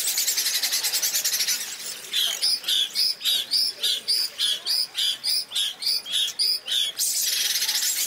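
Bird song made from human voices: an audience's group imitation of a slowed-down bird song, sped up ten times so that it sounds like the bird itself, a blue tit. A dense, rapid high trill for about two seconds gives way to a run of repeated high chirps, two or three a second, and the dense trill returns near the end.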